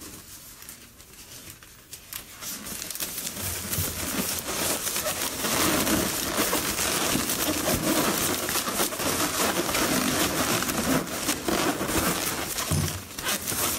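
Latex and foil balloons rubbing and crinkling as they are pushed and twisted into place on a balloon column. The sound is a dense, crackly rustle that builds a few seconds in and eases off near the end.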